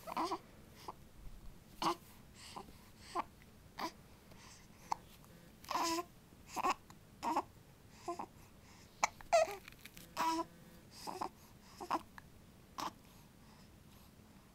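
A baby hiccuping again and again: short, sudden voiced hics at an irregular pace of about one or two a second, with a few slightly longer fussy cries among them.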